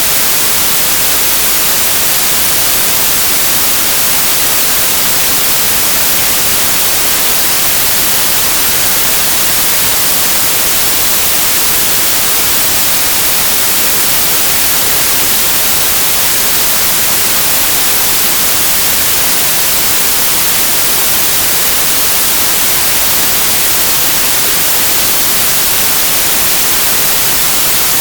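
A steady, even hiss like white noise, strongest in the highest pitches, with no change in level or texture.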